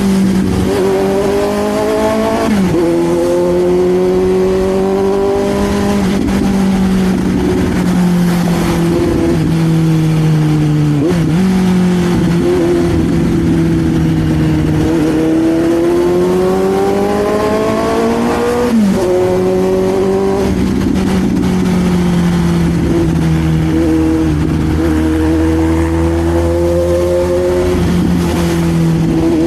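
Suzuki GSX-S750's inline-four engine through an SC Project slip-on exhaust, ridden under acceleration: the engine note climbs and drops sharply at each of three upshifts, then holds a fairly steady pitch while cruising.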